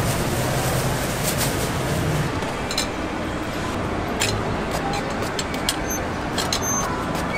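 Steady busy-market background noise with a low hum, broken by a scattering of short, light clicks and taps.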